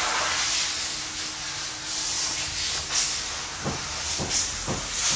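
A steady hiss of a pressurized jet of air or gas that starts abruptly, with a few faint knocks near the end.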